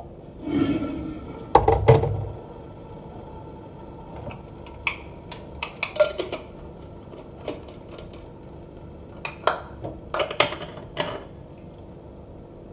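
Hard clinks, taps and knocks as a thermos flask is capped and moved about on a stone countertop. A cluster of louder knocks comes about two seconds in, followed by scattered lighter clicks.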